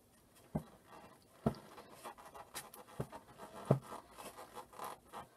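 Metal spoon digging and scraping inside a hollowed-out lime to break up the pulp, soft scratching broken by a few sharp clicks.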